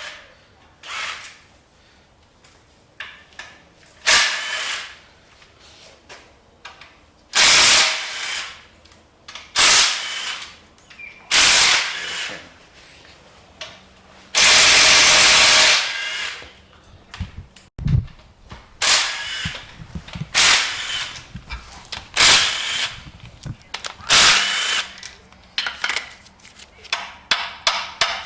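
A power tool running in short bursts of about a second, about nine times, the longest about halfway through, with sharp clicks of hand tools and parts between them, as bolts come off an engine being torn down.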